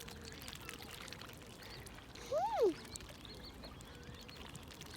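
Faint trickling water, with one call about halfway through that rises and then falls in pitch.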